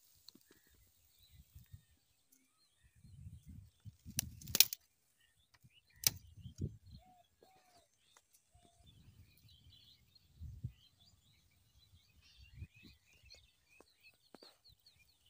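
Birds chirping in open rural surroundings, with patches of low rumble and two sharp clicks about four and a half and six seconds in.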